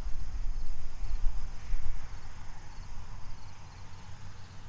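Insects chirping in a faint, evenly repeating pattern in the roadside greenery, over a low rumble that is heaviest in the first two seconds and then eases.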